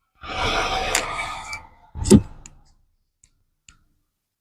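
A person sighing close to the microphone: a long breathy exhale, then a shorter, louder breath about two seconds in, followed by two faint clicks.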